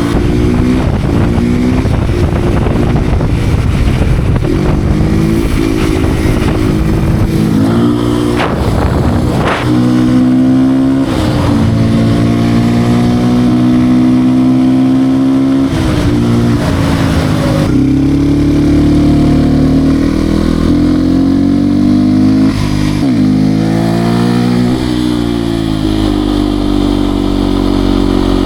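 Beta RR 125 R supermoto's single-cylinder engine under way, revving up and dropping back again and again as the gears change, with several sharp falls in pitch at each shift.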